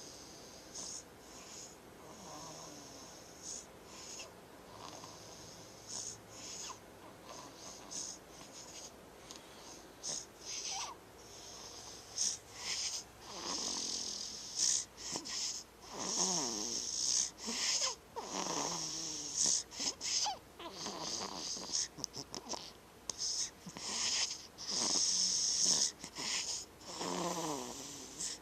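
A sleeper snoring in irregular breaths, each with a hiss. From about halfway through the snores get louder, with a rough pitched tone.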